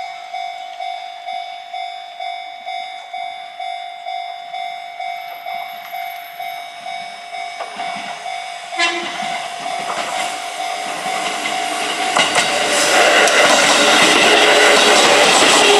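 Japanese level crossing's warning bell ringing in an even, rapid clang of about two strokes a second, then a train approaching, with a brief horn toot about nine seconds in. The train's running noise swells from about ten seconds in and becomes loud near the end as it passes over the crossing, drowning the bell.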